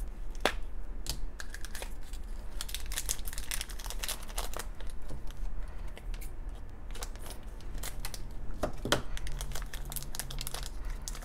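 Crinkling and crackling of a thin purple plastic blind-bag wrapper being torn open and scrunched in the hands, with a sharp click about half a second in.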